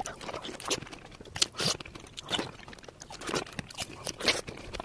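Close-miked chewing and biting of fresh strawberries, crunchy mouth sounds at irregular intervals.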